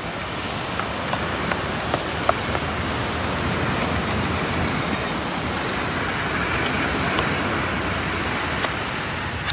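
Steady rushing seaside noise of surf and wind, growing a little louder, with a few light ticks and a sharper one near the end.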